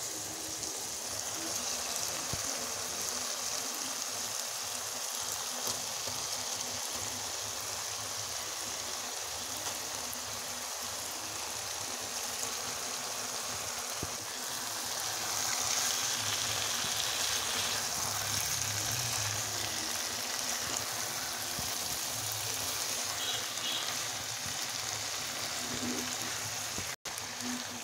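Spiced potato-and-tomato masala with small fish in it sizzling and bubbling steadily in a karahi on the stove. The sound cuts out for an instant near the end.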